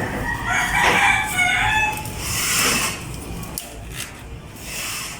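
A rooster crowing once, a call of about two seconds, followed by a short hissing rustle.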